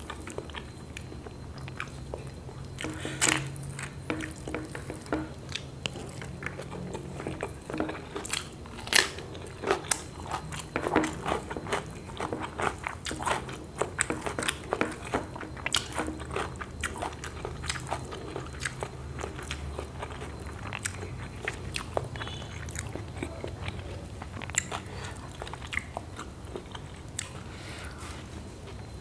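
Close-miked chewing and biting of a person eating rice with fried long eggplant and omelette by hand, with frequent short crunchy clicks of mouth and food. The clicks are busiest in the first half and thin out later, over a faint steady low hum.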